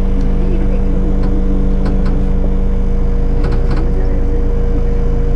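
Engine of a safari vehicle running steadily: a constant low hum with a higher steady tone over it, and a few faint ticks.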